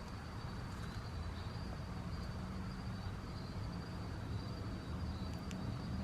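Steady high-pitched trilling of crickets in a night-time insect chorus, over a low steady rumble.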